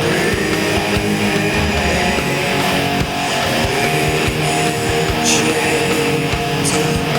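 Instrumental nu-metal music: electric guitar chords over bass and drums, with two cymbal crashes in the second half.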